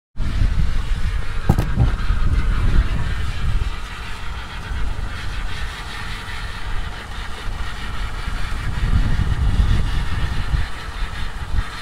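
Wind buffeting the microphone on a sailboat under way: a low, gusty rumble that swells and fades, over a steady rush of sea and boat noise, with a single click about a second and a half in.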